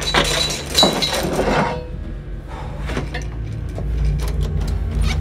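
Glass breaking with a crash, followed by scattered clinks of falling fragments, over a low steady drone.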